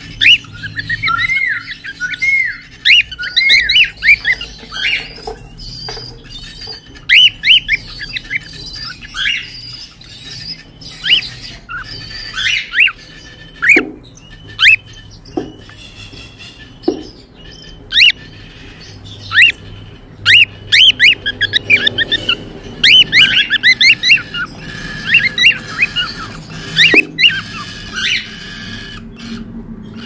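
Cockatiels chirping and squawking in quick runs of short calls that rise and fall in pitch, with brief pauses between runs.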